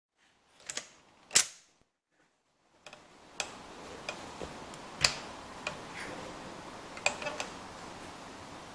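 Clicks and a sharp metallic clack from an AR-15 with a .22 conversion unit being handled. Once the shooter is aimed in, two sharp .22 rimfire shots follow about two seconds apart, the second followed quickly by two lighter clicks, over a steady hiss.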